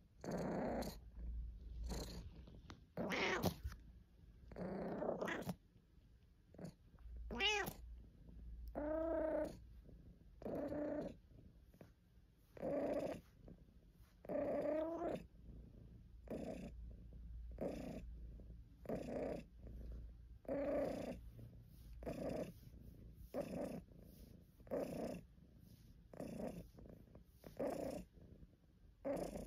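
British Shorthair cat purring in a slow rhythm of one breath about every second. Several breaths, mostly in the middle, carry a short voiced murmur or grumble.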